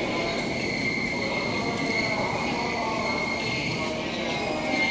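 Subway train running in an underground station, a steady rumble with a continuous high-pitched tone over it.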